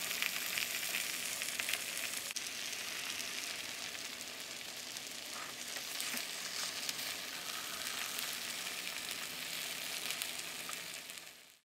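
Pad see ew (wide rice noodles, chicken and Chinese broccoli) sizzling in a hot pan, with scattered clicks and scrapes of a spatula tossing it. The sizzle fades out near the end.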